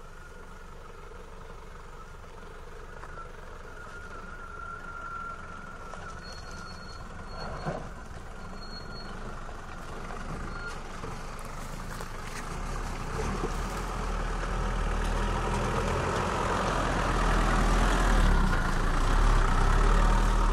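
Land Rover Series IIa's engine running as it comes down a rocky track, growing steadily louder as it draws close and passes by.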